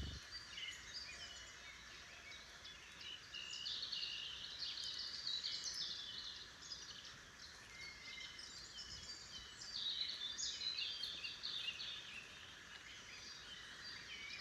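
Wild songbirds singing, several overlapping songs and chirps in a continuous chorus, over a faint steady background hiss.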